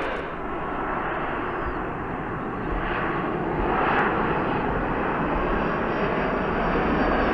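Airbus A330-300's Rolls-Royce Trent 700 turbofan engines on final approach, a steady jet engine noise as the airliner passes low with its landing gear down.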